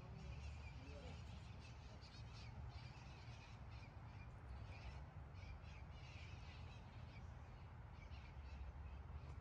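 Faint bird calls, short and repeated many times, over a steady low rumble of outdoor background.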